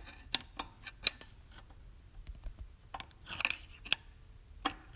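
Light, irregular metallic clicks and short scrapes from a pick working against the connecting rod through the intake port of a 1981 Yamaha G1 golf cart's two-stroke engine. The clicking is the rod shifting side to side, which the owner takes for worn rod bearings and wrist pin.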